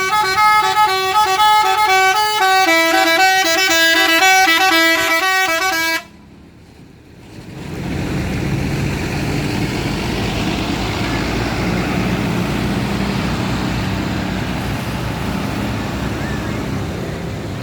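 A tourist bus's multi-tone basuri horn playing a stepped melody, cut off abruptly about six seconds in. After a short lull, a steady noisy outdoor din takes over.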